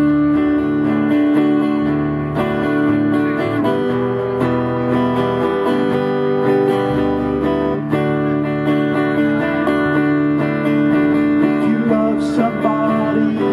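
Acoustic country band playing a slow song: strummed acoustic guitar and plucked banjo over a bass line, with a man's singing coming in near the end.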